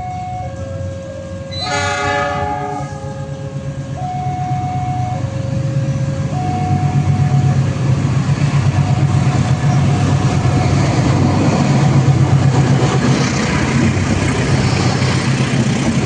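Passenger train sounding one short horn blast about two seconds in, over a two-note warning signal that alternates about once a second. The train then rumbles past, getting louder, with a rhythmic clatter of wheels over rail joints.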